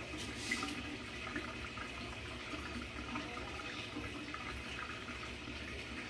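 Kitchen tap running steadily into a stainless steel sink, with small splashes.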